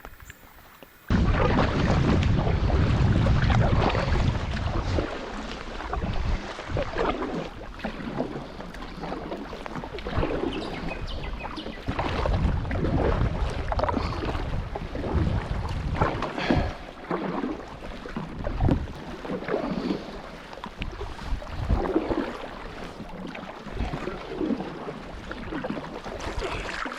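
Kayak paddle strokes splashing in the water about every second or two, with wind buffeting the microphone, strongest in the first few seconds.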